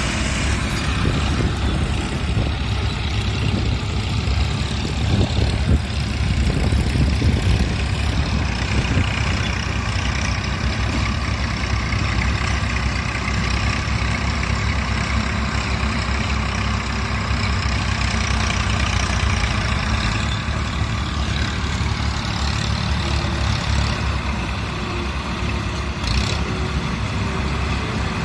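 Heavy engine running steadily, with a continuous low rumble.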